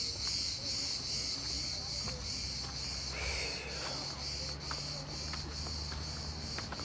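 Cicadas singing: a steady high-pitched chorus that pulses about three times a second.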